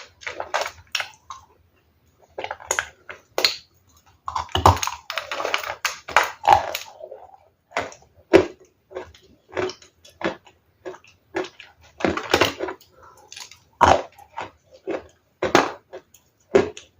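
Ice being bitten and chewed close to the microphone: irregular sharp crunches, with longer grinding stretches of crunching about four to seven seconds in and again around twelve seconds.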